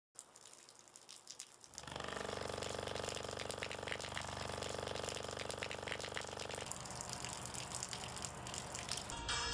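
Thin stream of water pouring from a tube. The tube is shaken by a loudspeaker, which gives a steady low buzzing hum with many overtones from about two seconds in, fading out near seven seconds while the water noise carries on.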